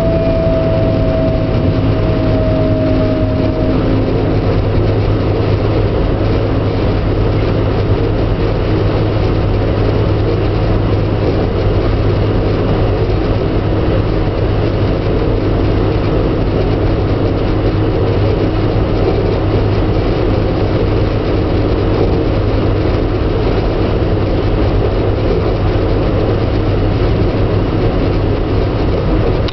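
Regional train running at speed, heard from inside the passenger car: a steady deep rumble and hiss of wheels on rails. For the first few seconds a whine sounds over it, sinking slightly in pitch before it stops.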